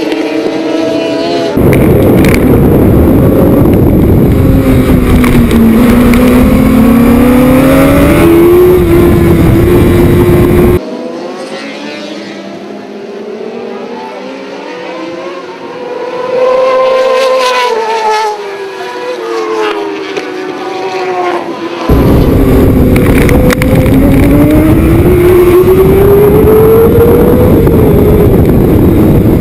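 600cc racing motorcycle at speed, heard from an onboard camera: the engine pitch sweeps down and back up through the corners over heavy wind rush. For about the middle third it is quieter, as racing motorcycles pass by with their engine notes rising and falling.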